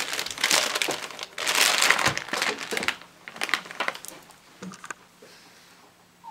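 Plastic anti-static bag around a motherboard crinkling and crackling as the board is handled and lifted out of its box. The crinkling is dense for about three seconds, then comes in a few short crackles and dies away about five seconds in.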